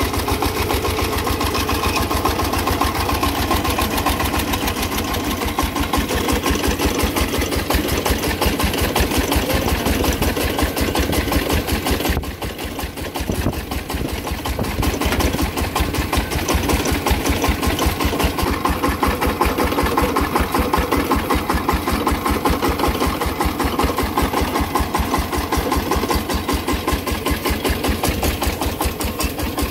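Single-cylinder diesel engine of a công nông farm truck running steadily with a fast, even chugging. It dips briefly quieter about twelve seconds in, then picks up again.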